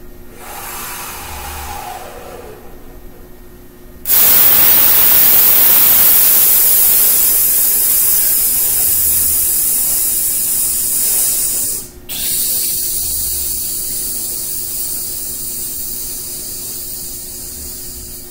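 A man's quieter breath in for about four seconds, then a loud, steady hissing breath out through the teeth on a long 'sss'. It breaks off briefly about twelve seconds in, then resumes and slowly fades. This is a singer's breath-control exercise: in for four beats, hiss out for sixteen.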